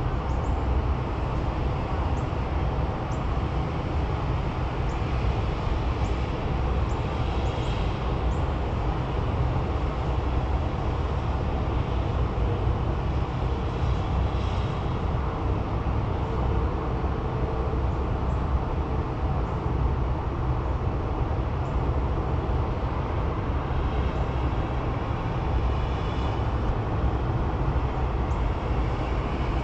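Steady low rumble of background noise without a break, with faint high chirps or ticks now and then.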